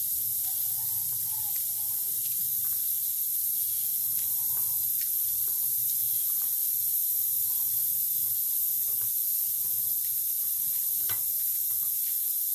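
Steady high hiss from a pressure cooker on a gas burner, cooking chickpeas under pressure, with a few faint knocks.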